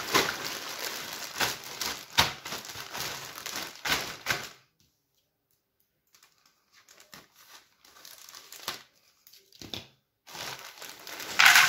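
Thin plastic bag full of jigsaw puzzle pieces crinkling and crackling as it is handled and opened, with sharp clicks. It stops for about a second and a half midway, resumes faintly, and a louder rush comes right at the end.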